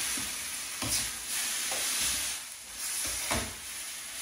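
Chicken and onion curry sauce, with carrot and coriander soup just added, sizzling in a hot pan as it is stirred. A few light knocks of the utensil against the pan come through.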